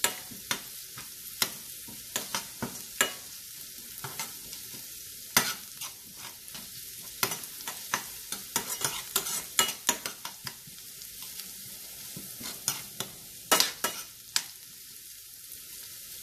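Shallots, crushed ginger, garlic and fennel seeds frying in hot coconut oil with a steady sizzle, stirred in the pan with irregular clicks and scrapes of the utensil against the pan.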